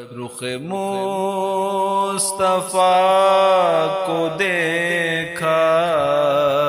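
A naat, an Urdu devotional poem, sung by a solo voice in long, wavering held notes over a steady low drone, with short breaths between phrases.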